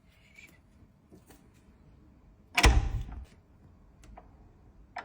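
A door slams shut once, about two and a half seconds in, with a heavy low thud that dies away within about half a second. A few faint clicks come before and after it.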